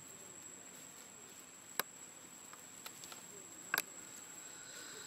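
Insects trilling steadily at a high pitch in the background, with two sharp clicks, one about two seconds in and one near four seconds, and a few fainter ticks between them; a second, lower steady insect tone comes in near the end.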